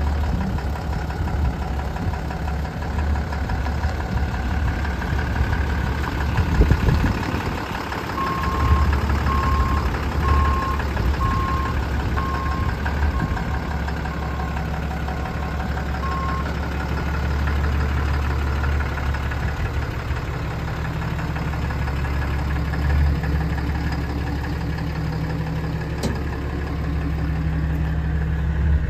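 2011 Ram 5500's 6.7-litre Cummins turbo-diesel engine idling steadily.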